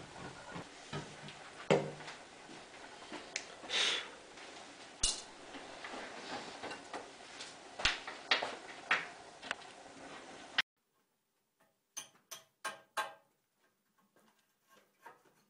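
Scattered small taps, clicks and knocks of hand work with a small metal tool on a wooden cabinet and its gilt-bronze mounts, over a faint hiss. About ten seconds in, the sound cuts off abruptly to near silence, broken by a quick run of four or five sharp clicks.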